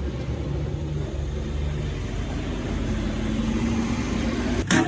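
A vehicle engine running steadily at low revs, its pitch stepping up about three seconds in. A sharp, loud sound comes just before the end.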